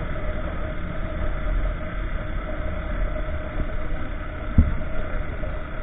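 Honda motorcycle cruising at about 55–60 km/h: steady wind rush on the camera mic over the engine's drone. A single brief thump comes about three-quarters of the way through.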